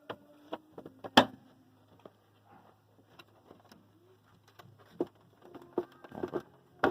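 Scattered clicks and knocks of hands working on a washing machine as its cover is closed. The loudest is a single sharp knock about a second in, with a couple more knocks near the end.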